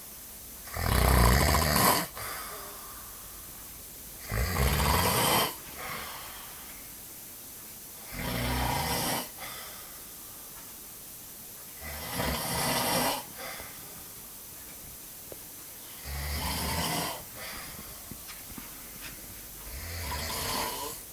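Heavy snoring: six loud snores about four seconds apart, each lasting about a second and followed by a shorter, softer breath. The first two snores are the loudest.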